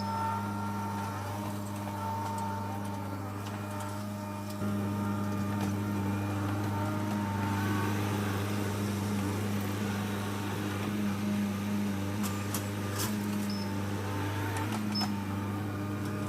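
Skid steer engine running steadily under work, a low droning hum that gets louder about four and a half seconds in, with a few sharp clanks near the end.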